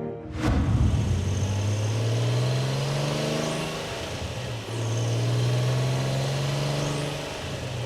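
Nissan 370Z sports car's 3.7-litre V6 engine comes in abruptly about half a second in and revs up, climbing in pitch. About four and a half seconds in it breaks briefly and drops in pitch, then runs on at a steady pitch, easing slightly near the end.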